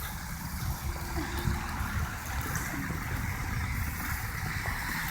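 Traffic on a snowy street: a steady low rumble of car engines with an even hiss.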